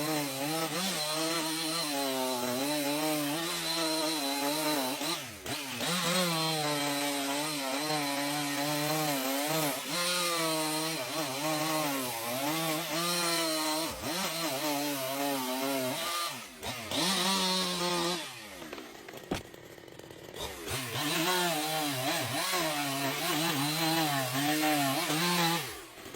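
Chainsaw cutting through a tree, its engine pitch rising and falling as the chain bites and eases. The saw drops to a quieter stretch about two-thirds of the way in, then runs and cuts again.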